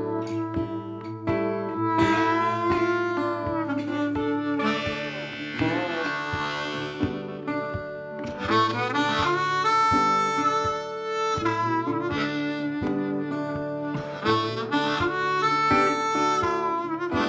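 Background music: a harmonica playing a bluesy melody with bent notes over guitar.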